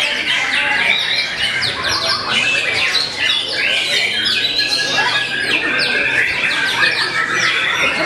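White-rumped shama (murai batu) singing hard and without a break: a dense stream of fast sweeping whistles, trills and harsh chattering notes, with other shamas singing over it.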